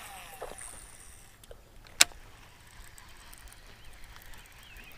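Baitcasting reel just after a cast: the spool's falling whine dies away, a single sharp click comes about two seconds in, then faint ticking as the line is wound in.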